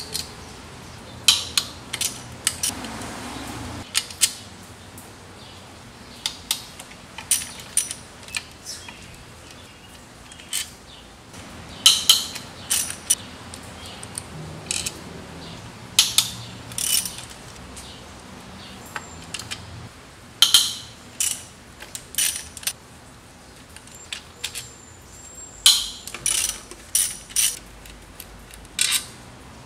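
Hand socket ratchet clicking in short runs of rapid clicks, again and again, as the intake manifold bolts are undone one after another.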